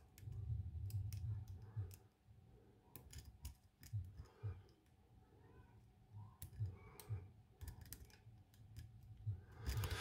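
Lock pick and tension wrench working the pins of a padlock's ABUS pin-tumbler core: small, irregular metallic clicks as pins are lifted and set, with low handling thumps. A short hiss comes near the end.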